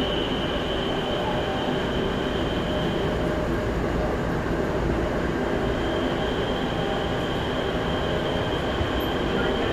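Daegu Metro Line 1 subway train running between stations, heard from inside the car: a steady rumble of wheels on rail with a faint high-pitched whine that fades in the middle and comes back near the end.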